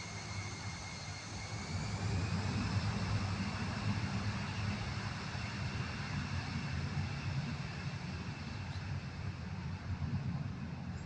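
Jet airliner's turbofan engines during takeoff: a steady low rumble under a high whine that rises in pitch and grows louder about two seconds in.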